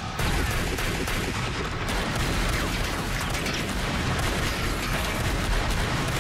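A sustained exchange of handgun fire, shot after shot in quick succession with hardly a pause.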